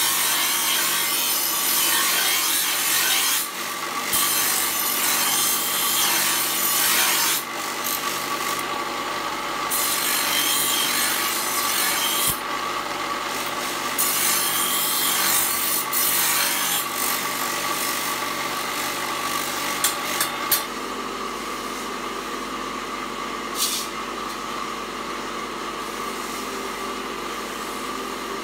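Bench grinder grinding a leaf-spring steel knife blank: a harsh rasping grind in long stretches, breaking off briefly each time the blade is lifted from the wheel, over the steady whine of the grinder motor. After about twenty seconds the grinding eases and mostly the running motor is left.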